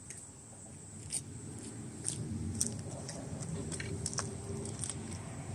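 Scattered light metallic clicks and clinks of hands and tools working at a loose brake caliper, over a low rumble that grows about two seconds in.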